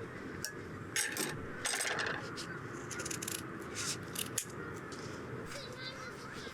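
Light metallic clinks and clicks, a scattered handful of short ones, with one sharper click a little after four seconds in.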